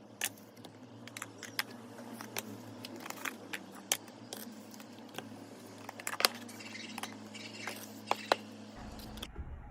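Irregular sharp clicks and taps over a low steady hum, cutting off abruptly near the end.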